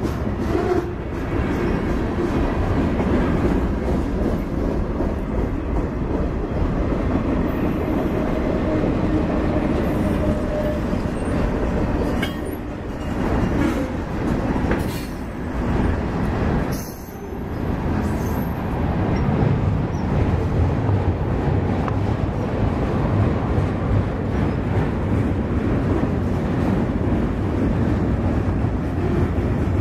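Freight train cars rolling past close by, a steady noise of steel wheels running on the rails.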